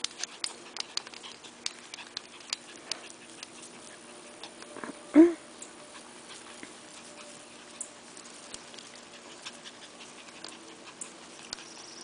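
A Havanese puppy gives one short bark about five seconds in, amid scattered light clicks and rustling from the puppies playing in the grass.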